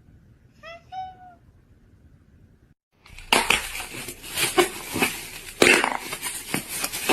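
A cat gives one short meow about a second in. After a cut, loud clattering and crashing noise with several sharp knocks follows.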